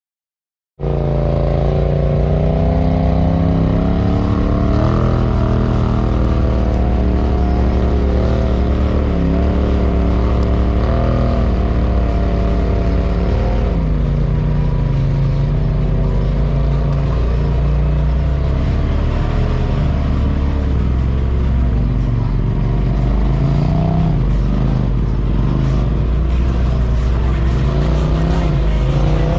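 Polaris RZR side-by-side engine running and revving as it drives over trail terrain, its pitch rising and falling with the throttle. It starts abruptly about a second in, and a few sharp clicks or knocks come near the end.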